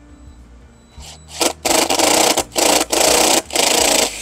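Power drill with a 3/4-inch bit boring a hole through a house's exterior wall, cutting in about five short, loud bursts from about a second and a half in.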